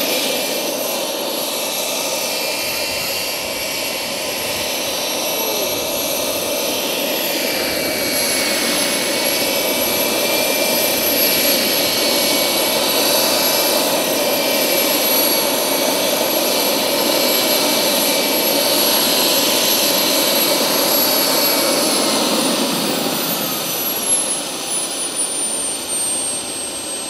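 Vario XLC model helicopter's turbine engine and main rotor running, with a steady high whine over a rushing rotor noise as it hovers low. About five seconds from the end the whine falls in pitch as the turbine is throttled back after it sets down, with a light knock at touchdown.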